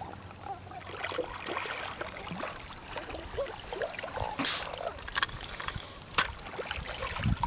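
Hooked blue catfish splashing at the water's surface as it is reeled up beside the boat, with water trickling and dripping; sharper splashes come about four and a half and six seconds in.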